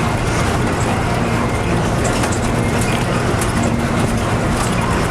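Steady engine and road noise of a vehicle being driven, with a low hum.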